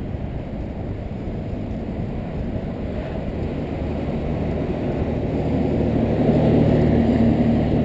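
Wind rushing over a GoPro camera's microphone on a bicycle moving at speed, with the rumble of tyres rolling on asphalt. The noise is steady and swells louder over the last couple of seconds.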